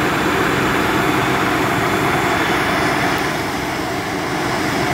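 LS XR4140 tractor's diesel engine running steadily at an even speed during a manual regeneration of its exhaust particulate filter.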